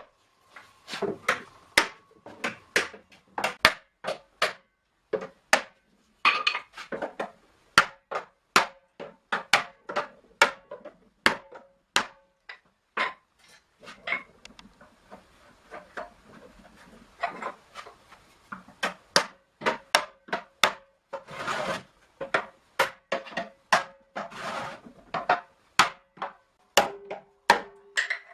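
Hammer blows on a hoop driver, driving the metal hoops down onto an oak barrel after its head is fitted: a long series of sharp, ringing knocks, about two a second, with a short lull partway through.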